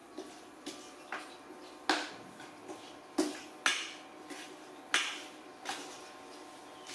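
A metal utensil clinking against a metal cooking pan during stirring. There are about ten irregular sharp clinks, each with a brief ring, and the loudest come about two, three and a half and five seconds in.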